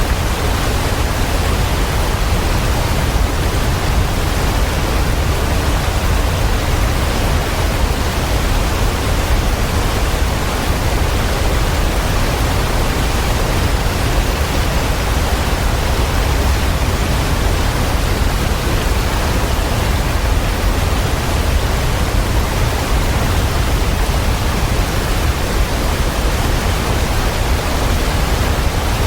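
Waterfall: a steady, dense rush of falling water with a strong low rumble, unchanging throughout.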